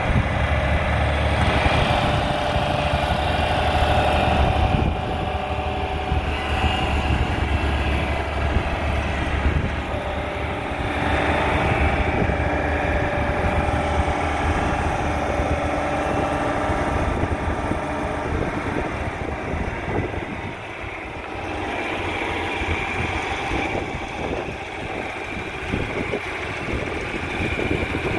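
John Deere 4020's gasoline inline six-cylinder engine running at low speed as the tractor is driven. Its sound drops for a few seconds about two-thirds of the way through, then comes back up.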